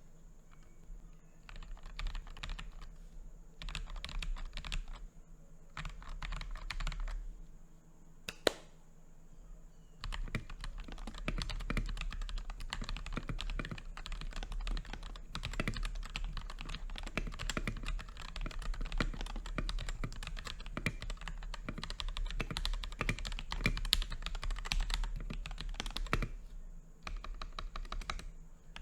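Mechanical keyboard fitted mostly with KTT Wine switches plus a Kailh Box White, being typed on. A few short bursts of keystrokes come first, then a single sharp click about eight seconds in, then fast, steady typing from about ten seconds on.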